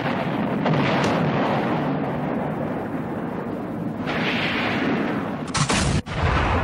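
Loud, dense rumbling and booming, like a dramatic soundtrack effect. A sharper burst cuts in about five and a half seconds in, breaks off for an instant and comes back.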